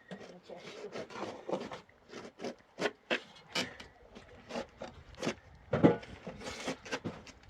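Irregular knocking and scraping, many short sharp strokes at uneven spacing, the loudest a little before six seconds in.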